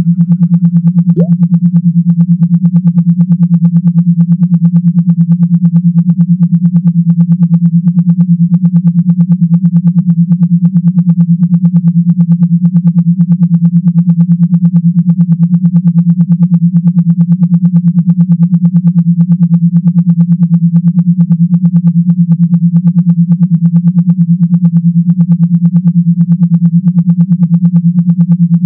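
Electronic low buzzing tone that pulses very rapidly and evenly without change: a generated vibration sound of the kind played through a phone speaker to shake out water or dust, or to imitate a massager.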